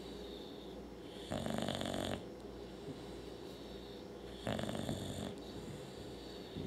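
A sleeping dog snoring: two snores, each just under a second long, about three seconds apart.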